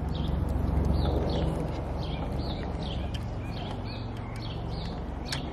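A bird chirping over and over, about two short chirps a second, over a low rumble that is loudest in the first two seconds.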